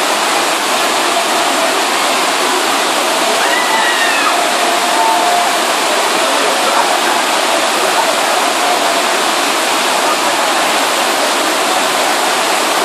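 Steady, unbroken rush of white water cascading down tiers of rock ledges in a waterfall.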